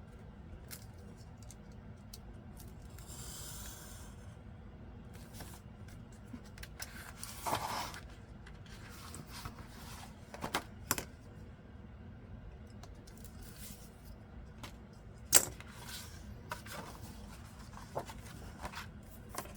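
Paper and small craft tools being handled on a tabletop: occasional light clicks and taps, with a sharp tap about fifteen seconds in, and soft rustles and a short scrape of paper in between.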